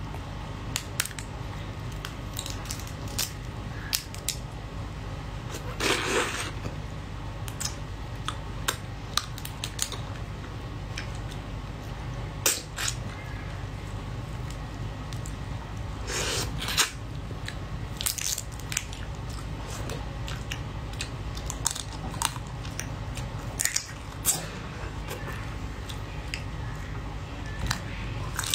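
Close-up eating sounds from a soy-marinated raw crab: shell and legs cracked and pulled apart by hand, with many sharp clicks and snaps and the mouth biting and chewing the meat. Two longer, noisier cracking sounds come about six and sixteen seconds in, over a steady low hum.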